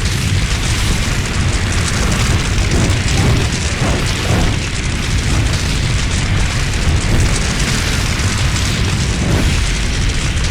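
Dragon sound effect: a loud, continuous rumbling rush of noise, heaviest in the low end, with no breaks or separate hits.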